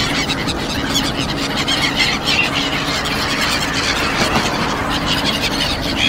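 A large flock of gulls calling: many short, high cries overlapping in a continuous chatter, over a steady low rumble.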